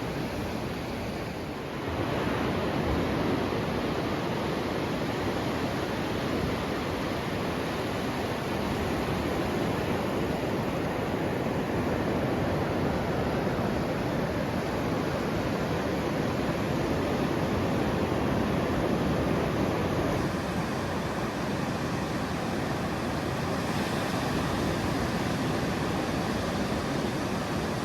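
Steady rush of sea surf breaking on a sandy beach, a little louder from about two seconds in.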